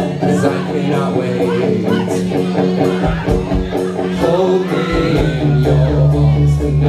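Live rock band playing: electric guitar, bass and drums, with the bass moving to new notes about three and five seconds in.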